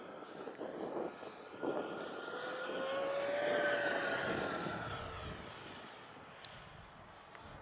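FMS Avanti electric ducted fan RC jet making a low pass. The fan's whine swells to its loudest about three and a half seconds in, rising slightly in pitch as it comes in and falling as it goes by, then fades as the jet climbs away.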